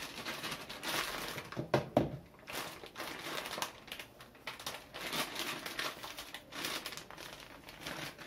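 Plastic bag of wheat flour crinkling and rustling in irregular bursts as it is handled and opened, with two sharp knocks close together about two seconds in.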